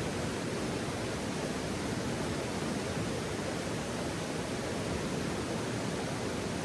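Steady, even rushing noise with no distinct pops or crackles.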